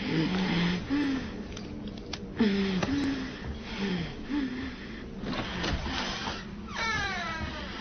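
Wordless vocal sounds: short moans that fall in pitch, repeated, with a higher falling whine near the end.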